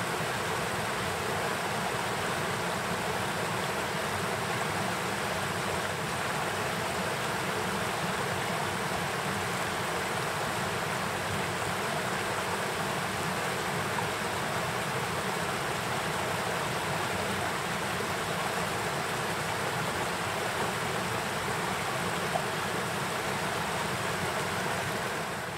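Small mountain stream rushing over rocks in a steady, unbroken wash of water noise.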